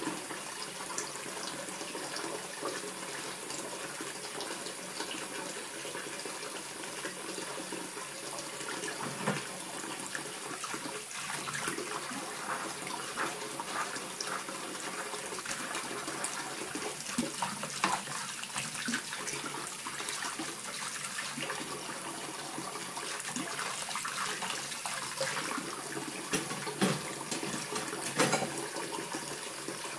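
Kitchen tap running in a steady stream into a metal pot in the sink, with scattered clinks and knocks of dishes being handled.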